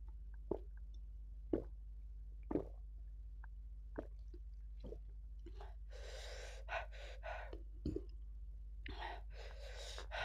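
A person gulping water from a glass mug, five short swallows about a second apart, followed by two long, breathy exhales.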